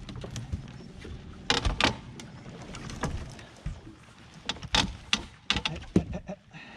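Irregular knocks and clatter in a fishing boat, with the sharpest around a second and a half in and again around five to six seconds, over a low steady rumble.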